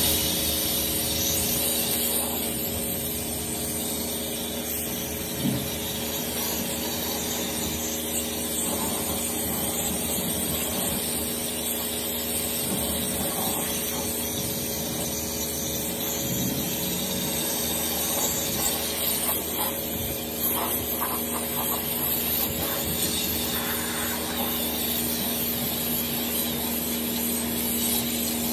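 Kärcher K3 Power Control electric pressure washer running on its medium car setting: a steady pump hum under the hiss of the water jet spraying against a car's bodywork.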